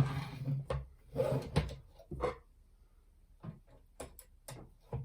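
Plastic knocks, scraping and sharp clicks as a long screw is driven into the plastic frame of a model kit and the parts are handled. The screw is hard to get in. A few sharp clicks come near the end.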